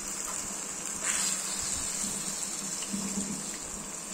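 A glass of water being poured into a pan of prawn and potato curry masala, a steady gushing pour.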